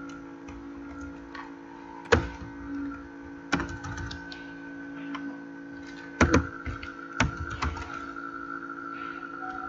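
Computer keyboard keys clicking irregularly as text is typed, with a few louder key strikes among the lighter taps, over a steady background hum.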